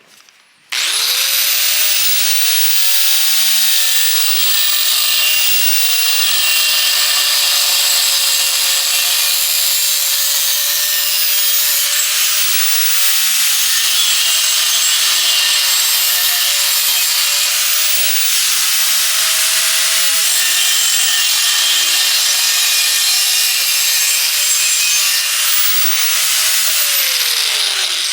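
Angle grinder spinning up and grinding into steel trampoline tubing to notch it, its motor whine dipping slightly under load over a steady harsh hiss, then spinning down near the end.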